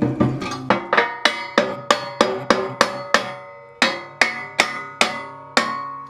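Hammer striking steel about three times a second, each blow leaving the steel channel and leg ringing, with a short pause a little past halfway. The leg is being knocked into place against the channel top before it is tack-welded.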